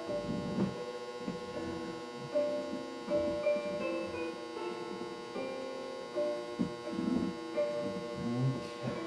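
Quiet background music of held notes that change pitch every second or so, over a steady hum.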